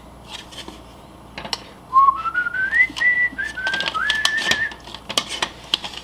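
A person whistling a short tune, a few notes stepping upward and then settling, about two seconds in and lasting under three seconds. Light clicks and knocks of the plastic coffee grinder being handled and turned over come and go.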